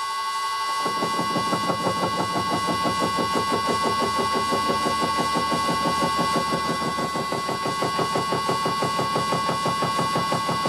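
Vintage lathe running with a steady gear whine while an 80 mm shell face mill with indexable inserts mills a steel block. About a second in, the inserts bite in and a fast, even hammering of interrupted cuts sets in and keeps going, on a 0.75 mm deep pass.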